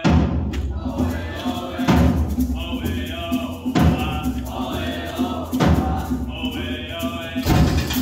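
A percussion ensemble of marimbas, vibraphones and drums playing live, with a strong bass line. The music starts with a loud hit at the opening, and heavy accents recur about every two seconds.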